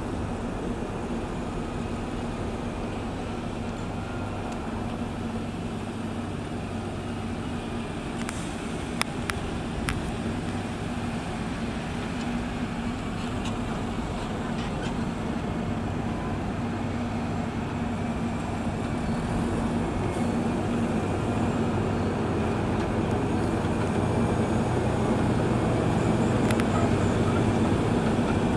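Diesel engine of a heavy road-building machine running steadily under load, growing louder over the second half. Two sharp clicks about nine and ten seconds in.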